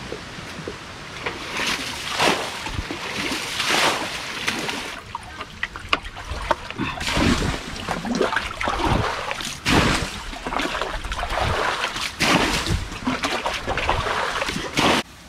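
Water in a shallow rocky stream pool splashing and sloshing over and over, as it is scooped and thrown out with plastic basins and buckets.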